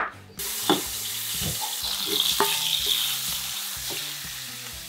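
A knife chops once on a cutting board right at the start. Then shrimp and sausage slices sizzle in hot oil in a frying pan, starting abruptly, while a utensil stirs them and knocks against the pan now and then. The sizzle slowly fades.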